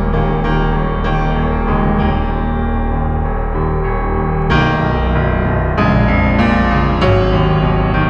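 Instrumental background music on piano, with held, overlapping notes and a new chord struck every second or so.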